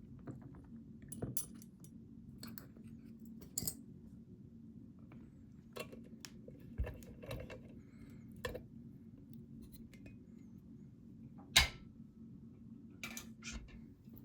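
Scattered small metallic clicks and rattles from handling a picked-open Mul-T-Lock Interactive LFIC core and its picking tools, with one sharper click about eleven and a half seconds in, over a low steady hum.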